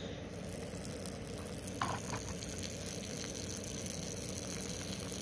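A female dog urinating hard: a steady hiss of liquid streaming out. There is one short knock about two seconds in.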